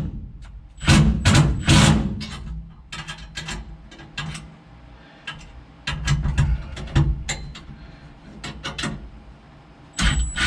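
Hand tools clicking, clanking and rattling against metal at irregular moments as bolts are fastened, a ratchet wrench among them. A louder continuous sound starts near the end.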